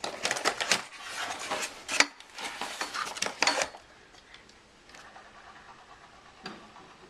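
Packaging being handled and pulled off a newly unboxed kick scooter: dense rustling and crackling with a sharp clack about two seconds in, dying down to faint handling noise after about three and a half seconds.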